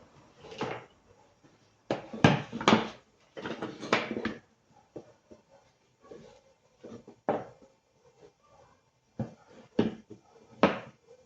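Irregular knocks and clatters, a dense cluster of them about two seconds in, then single knocks every second or two.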